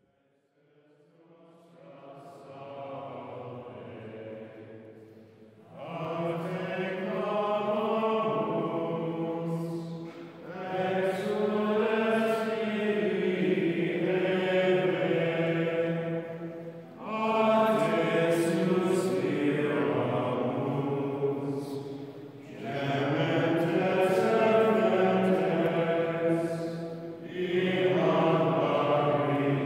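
Slow chant-like vocal music: long, held sung phrases of about five seconds each, with short pauses between them, fading in over the first few seconds and then swelling.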